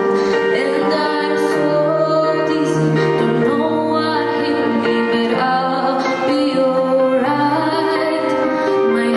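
A girl singing a slow ballad into a microphone, amplified, over instrumental accompaniment with long held bass notes.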